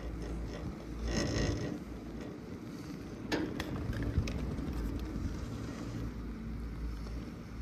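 CTEC fixed-grip chairlift running: creaking and clicking from the chair and lift mechanism over a steady low hum, with a few sharp clicks a little past the middle.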